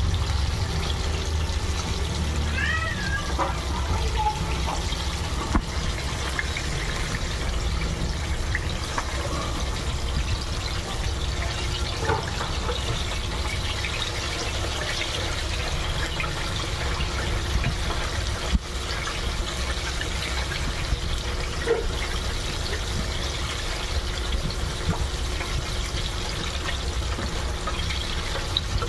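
Breaded chicken deep-frying in a stainless steel pan of hot oil: a steady bubbling sizzle, with a few sharp clicks of metal tongs against the pan.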